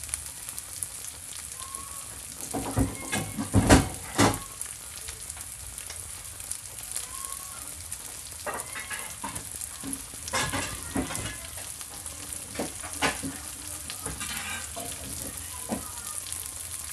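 Chopped onion, garlic and ginger frying in oil in a pan, giving a steady sizzle. Several sharp knocks and clatters break in, loudest about four seconds in, with more around the middle.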